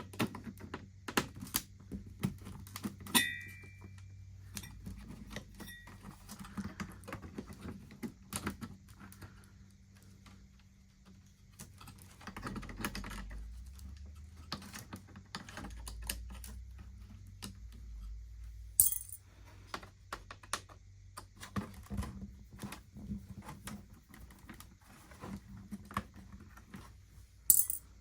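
Torx screwdriver clicking and tapping as screws are backed out of an original Xbox motherboard and case, with small metallic clinks of loose screws being set down. One screw rings briefly about three seconds in.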